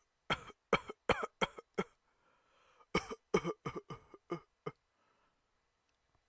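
A person coughing in two fits: about five sharp coughs in quick succession, roughly three a second, then after a short pause about six more.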